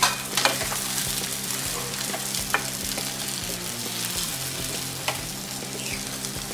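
Masala-coated small brinjals sizzling in a frying pan while a wooden spatula stirs them, with a few sharp knocks of the spatula against the pan.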